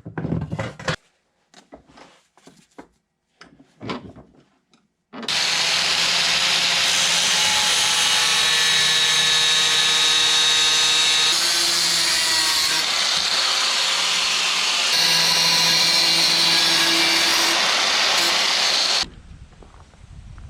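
Power tool running steadily for about fourteen seconds, starting and stopping abruptly, after a few light knocks and clinks.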